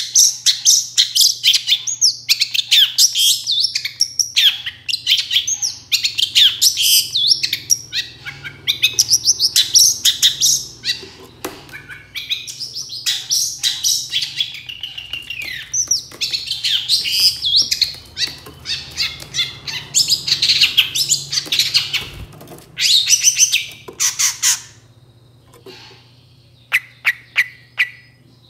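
Long-tailed shrike (cendet) in full 'gacor' song: a fast, varied chatter of high chirps and whistled phrases in rapid runs with short breaks, the kind of song used to provoke other shrikes into answering. Near the end it drops to quieter, quickly repeated short notes.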